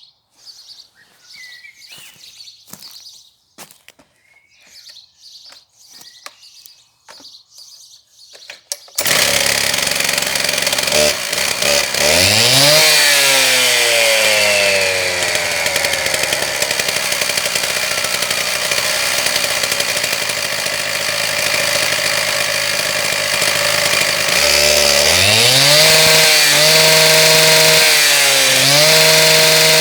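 Husqvarna K760 petrol concrete saw's two-stroke engine: a few faint clicks, then it starts suddenly about nine seconds in and runs. It revs up, slowly settles lower, then is revved to high speed twice near the end.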